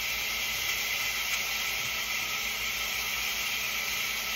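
A steady, even hiss with no distinct knocks or clicks.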